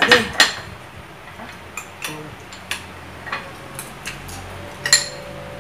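Metal spoons clinking and tapping against bowls and ice cream tubs as several people scoop and eat ice cream, a string of irregular sharp clinks with a light ringing, the loudest two near the start.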